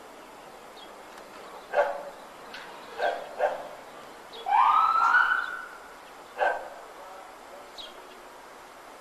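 Dog barking in single barks spaced a second or more apart, with a louder, longer cry that rises in pitch and then holds, about halfway through.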